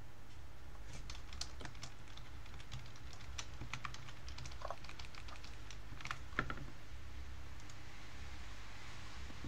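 Computer keyboard typing: irregular keystrokes starting about a second in and stopping shortly before the end, over a low steady hum.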